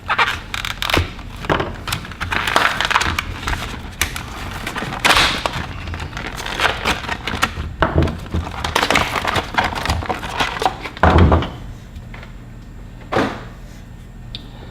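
Tool packaging being opened and handled: a string of rustling, tearing and knocking sounds, with a heavier thump about eleven seconds in.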